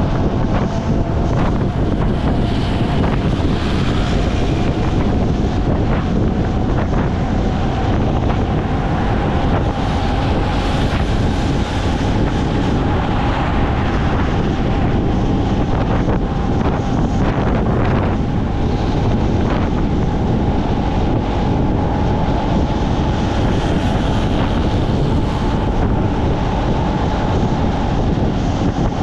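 Steady wind rumble on the microphone while travelling in a moving vehicle, with a faint whine that drifts slightly in pitch.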